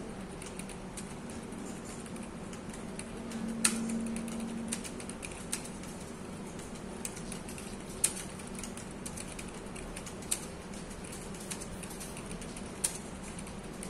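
Rapid touch-typing on a computer keyboard: a continuous patter of key clicks, with a few sharper, louder keystrokes standing out.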